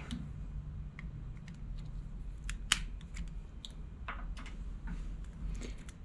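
Scattered small plastic clicks and handling noises as a replacement lathe switch mechanism is pressed and fitted into its plastic switch plate, with one sharper click about two and a half seconds in.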